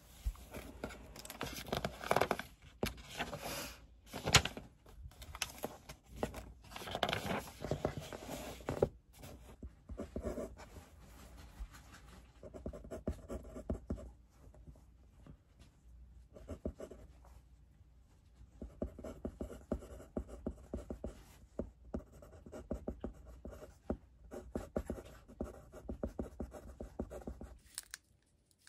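Pen writing on paper in a workbook: quick scratchy strokes in irregular runs, broken by short pauses.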